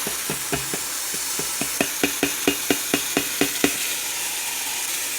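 Chicken pieces sizzling in hot oil and curry in a pot, while a utensil stirs them, knocking against the pot about five times a second; the knocking stops about three and a half seconds in and the sizzle goes on.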